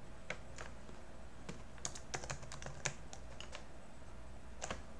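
Computer keyboard typing: scattered single key presses with a quick run of them about two seconds in, over a faint steady low hum.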